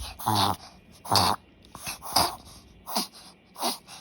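Pomeranian reverse sneezing: a run of about six harsh, honking snorts, one every half to three-quarters of a second. The vet judged these episodes reverse sneezing, not tracheal collapse.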